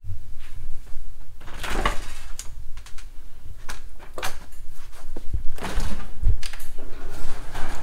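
Clicks, knocks and a steady low rumble of a handheld camera being handled and moved about in a small room.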